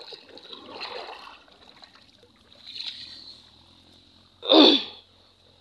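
Footsteps splashing through shallow water and wet mud, soft sloshes every second or two. A short, loud voiced exclamation comes about four and a half seconds in.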